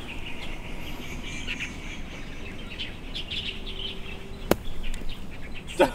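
Birds chirping, and about four and a half seconds in a single sharp strike of a golf club hitting the ball from a grassy lie.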